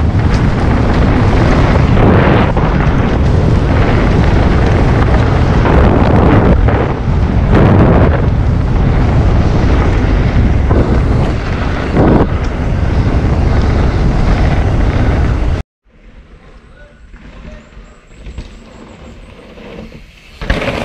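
Heavy wind buffeting on a GoPro Hero 9's microphone at riding speed, mixed with the knocks and rattles of a mountain bike over rough trail. After about fifteen seconds it cuts off abruptly to a much quieter stretch.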